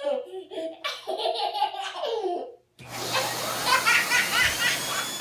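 A baby laughing in repeated bouts. After a brief break about halfway through, a short high-pitched squealing over a steady hiss.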